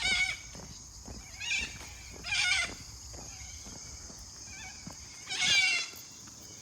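An animal calling four times: short, bleat-like calls with a wavering pitch, the last one the longest and loudest. A steady high-pitched hum runs beneath them.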